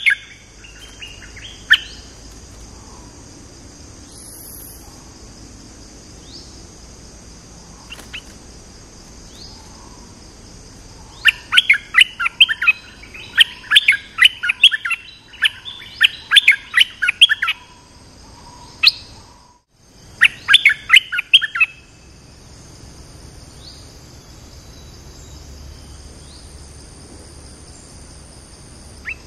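Caged decoy stripe-throated bulbul singing in bursts of quick, short notes: a few phrases at the start, a long burst of about six seconds beginning some eleven seconds in, and a shorter burst around twenty seconds in. A steady high hiss runs underneath.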